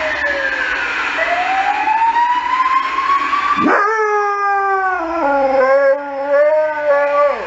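An emergency vehicle's siren wails, falling and then rising in pitch. About three and a half seconds in, a saluki answers with a long, wavering howl that stops abruptly near the end.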